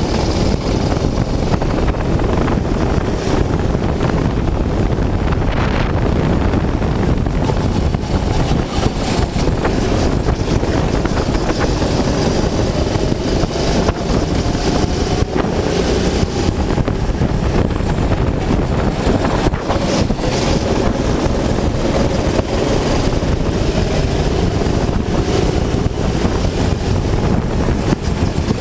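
Go-kart engine running under load as the kart is driven round the track, its pitch slowly rising and falling with speed. Heavy wind noise on the on-board microphone.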